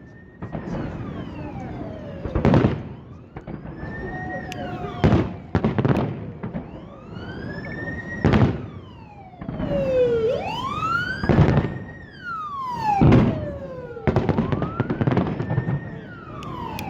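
Fireworks display with a loud burst every one to three seconds, and whistling shells between the bursts whose pitch rises and then falls.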